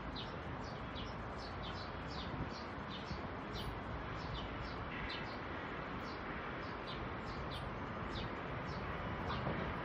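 A bird repeating short, falling chirps about twice a second, over a steady low rumble from the distant approaching electric train that grows slightly louder near the end.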